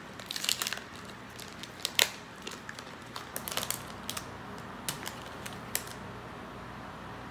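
Candy bar wrapper being opened and handled: a run of crinkles and sharp clicks, densest at the start, the sharpest about two seconds in, thinning out after about six seconds.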